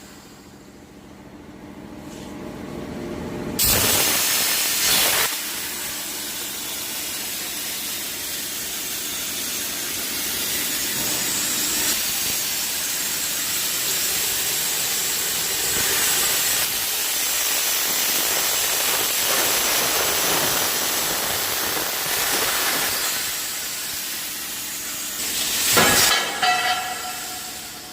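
Cutting torch of a CNC gantry cutting machine hissing steadily as it cuts, with a sudden louder rush of hiss about three and a half seconds in and another near the end.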